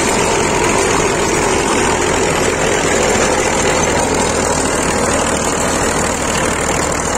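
Massey Ferguson tractor's diesel engine running steadily under load while it drives a 36-cutter PTO rotavator through the soil.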